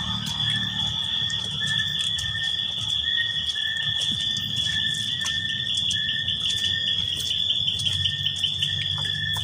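Night insects, crickets among them, trilling steadily at a high pitch, with a lower chirp repeating a little faster than once a second. Low rustling from walking through undergrowth runs underneath.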